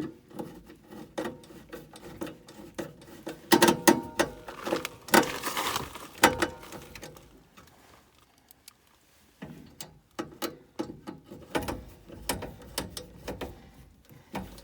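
Screws being driven into the gas furnace's sheet-metal burner assembly: rapid ratchet-like clicking with metal clatter in two bouts, the loudest stretch about four to six seconds in, and a short pause before it resumes.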